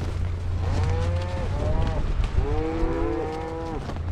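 Cattle bawling, with several drawn-out calls that overlap in the second half, over the steady low hum of an idling engine.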